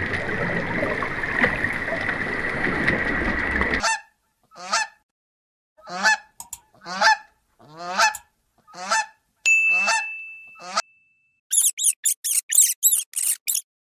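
A bird calling: a series of loud, harmonically rich calls about one a second, then a quick run of high chirps near the end.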